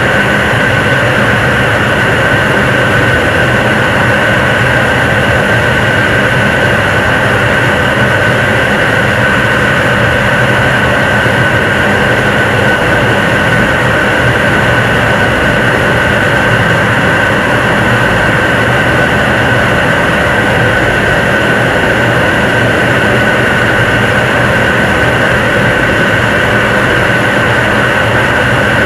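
7-ton-class liquid rocket engine (Nuri's third-stage engine, kerosene and liquid oxygen) firing at steady thrust during a long-duration hot-fire test: a loud, unbroken rush of noise with a steady high-pitched tone running through it.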